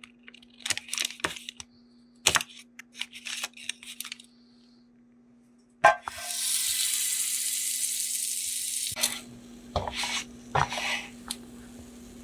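A knife cutting a block of butter in its paper wrapper, with light taps and paper crinkles, then a sharp knock and about three seconds of loud, steady sizzling as butter melts in a hot nonstick frying pan. A few scattered knocks and clicks of cooking follow near the end, over a steady low hum.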